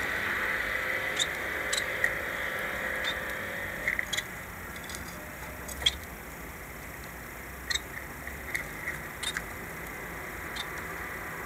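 Small cage birds giving short, high chirps, a dozen or so at irregular intervals, over a steady faint hiss.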